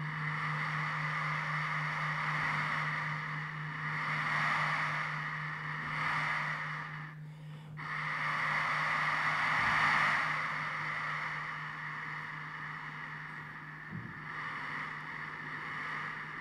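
Experimental live music for the dance: a steady low hum under a breathy, rushing noise voiced into a microphone that swells and fades like surf, breaking off briefly about seven seconds in.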